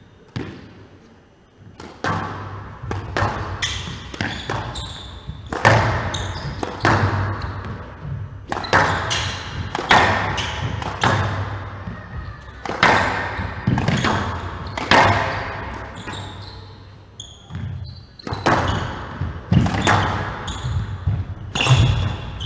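Squash rally: the ball struck by rackets and hitting the court walls, a sharp hit every half second to a second starting about two seconds in, each ringing briefly in the hall.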